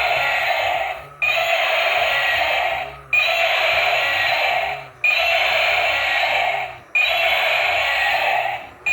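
A short electronic sound loop repeating about every two seconds, each repeat starting abruptly and fading away just before the next.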